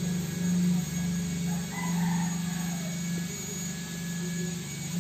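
A motor's steady low hum that swells and eases slightly, with a faint brief higher sound about two seconds in.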